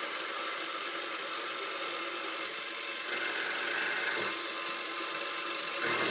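X3 mill's spindle running steadily while a three-flute end mill cuts into a 6Al-4V titanium plate at 12 inches per minute. The cut gets louder, with a high thin tone, from about three seconds in for just over a second, and again briefly near the end.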